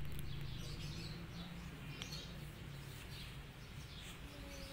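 Scattered faint bird chirps over a low steady hum.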